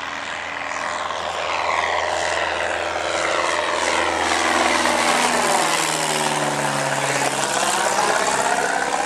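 Cessna 172R's four-cylinder piston engine and propeller at climb power, the plane flying past overhead just after takeoff. The drone grows louder and drops in pitch about five to seven seconds in as it passes.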